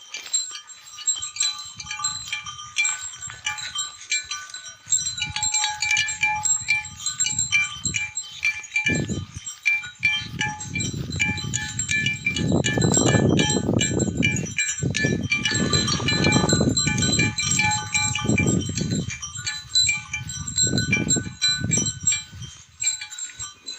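Livestock neck bells jangling and ringing steadily as grazing animals move. Irregular bursts of low rushing noise come in from about five seconds in and are loudest around the middle.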